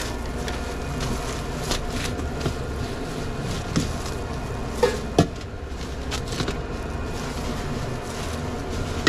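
A metal serving spoon scooping shredded steak out of a stainless steel pan and onto a sandwich roll, giving a few sharp clinks and knocks, the loudest two close together about five seconds in. A steady low hum runs underneath.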